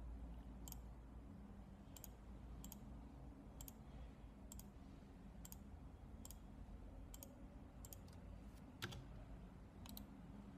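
Computer mouse clicking about a dozen times at irregular intervals, roughly one click a second, with one louder click near the end, over a faint low hum.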